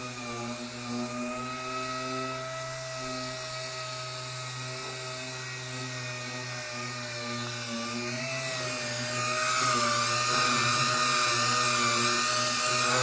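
Air-powered dual-action (DA) sander running steadily with a high whine and hiss as it sands the primed steel roof of a van, growing louder about nine seconds in.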